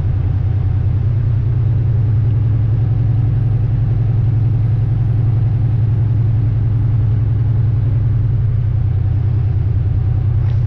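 Volvo VNL semi truck's diesel engine running steadily, a constant low drone with no change in revs.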